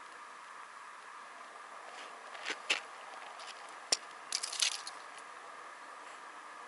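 Short sharp clicks and crackles of an ice angler handling his small rod and line at the hole, a couple about two and a half seconds in, one near four seconds and a quick cluster just after, over a steady faint background hiss.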